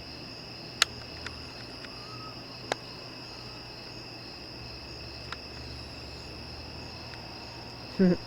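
A steady night-time chorus of crickets, high-pitched and continuous with a faint pulsing above it. It is broken by a few sharp clicks, and by a short, louder pitched sound shortly before the end.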